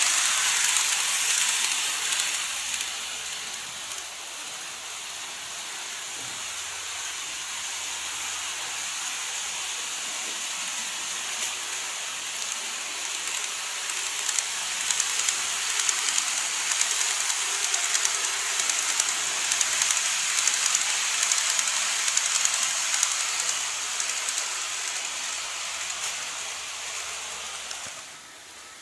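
N gauge model trains (an E351 and an E233) running on the layout: a steady high-pitched hiss of wheels and motors on the rails. It is loud at the start as one train passes close, then fades. It rises again with crackling clicks as the other train comes near, and drops off suddenly near the end.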